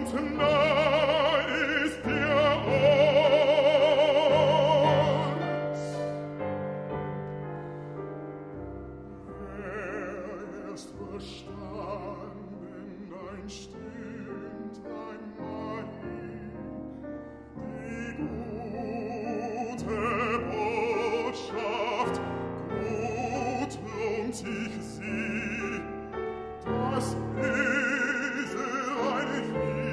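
Male classical singer singing a German art song (Lied) with grand piano accompaniment. Loud held notes with wide vibrato open the passage. A softer stretch follows, where the piano carries the line, and the voice swells loud again near the end.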